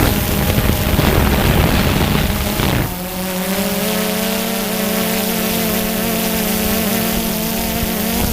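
Steady whine of a DJI Phantom 2 quadcopter's motors and propellers in flight. For about the first three seconds a loud rumbling noise lies over it and then stops abruptly, leaving the even hum.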